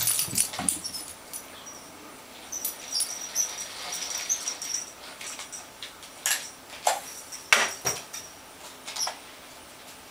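Small jingle bell on a cardboard cat toy jingling in short high shakes, with scattered sharp clicks and knocks as the toy is pulled and batted. Soft thumps in the first second as the cat pounces on the carpet.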